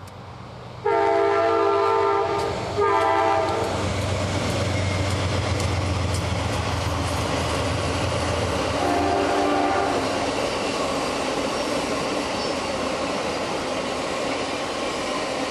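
Amtrak diesel locomotive's air horn sounds two long blasts about a second in, with the engine's low rumble beneath as it passes. Double-deck passenger cars then roll by with steady wheel-on-rail noise and a clickety-clack. A shorter, fainter horn note comes about nine seconds in.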